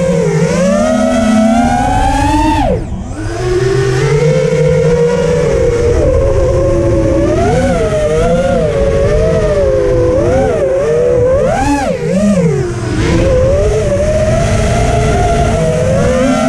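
Four T-Motor F40 Pro II 2400KV brushless motors spinning 5-inch tri-blade props on an FPV quadcopter, heard from the camera on board. Their whine rises and falls continually with the throttle; about three seconds in it drops sharply as the throttle is cut, then climbs back, with another short dip near twelve seconds, over a low rush of air.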